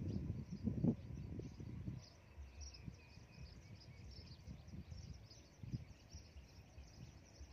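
Rural outdoor ambience: a steady, faint, high chirping of insects and birds, with low irregular rumbling noise in the first two seconds that then fades.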